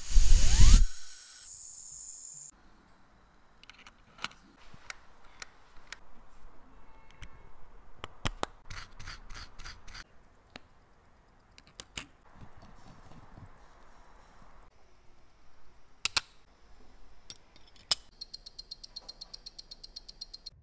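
Small metal watch parts handled with tweezers and tools: scattered sharp clicks and taps and light brushing or scraping. A loud rush of noise with a rising whistle opens it, and near the end the Cartier movement gives a run of fast, even ticks.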